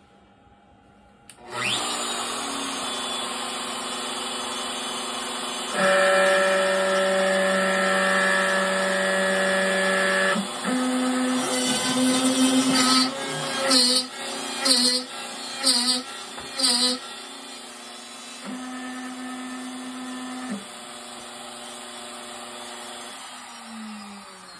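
DeWalt 611 compact router on an X-Carve CNC machine starting up about a second in, then its bit plunging into a clamped wood board and carving a keyhole slot, with a run of louder uneven bursts in the middle of the cut. The router winds down near the end, its pitch falling.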